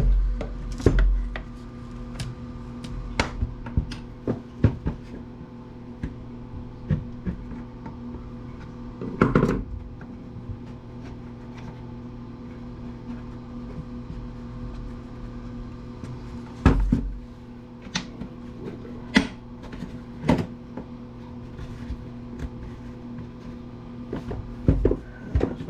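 Scattered clicks and knocks of hand tools and metal parts being handled while dismantling an electric wood planer, the heaviest knocks about a second in, around nine seconds and around seventeen to twenty seconds in, over a steady low hum.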